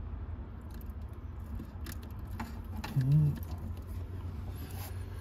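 Small clicks and rustles of wiring connectors and leads being handled over a steady low hum, with a short grunt about three seconds in.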